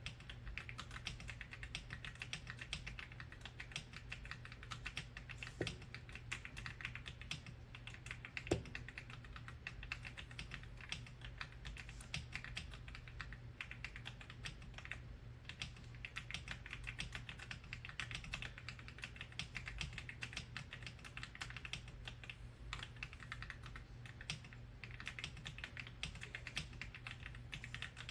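Typing on an AULA F99 mechanical keyboard with pre-lubed linear switches: a continuous stream of quick key clacks, with one sharper knock about eight and a half seconds in, over a low steady hum.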